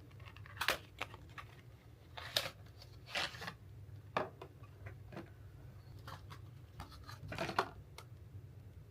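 Makeup packaging being handled and opened: a few short rustles and scrapes of paper or plastic with light clicks, over a low steady hum.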